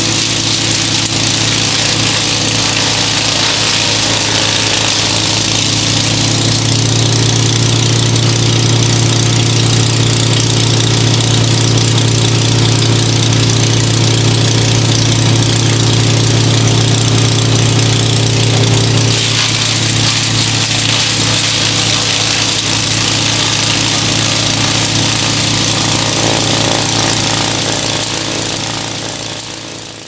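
Hansa wood chipper running and chipping tree branches, blowing the chips out through its discharge chute: a steady, loud machine noise. Its deep drone grows stronger about six seconds in and eases off around nineteen seconds, and the sound fades out at the very end.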